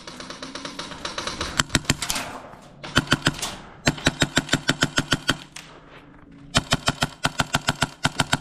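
Airsoft guns firing rapid strings of shots, about nine a second, in three bursts with short pauses between them. In the first two seconds there is a denser, fainter rattle of fire.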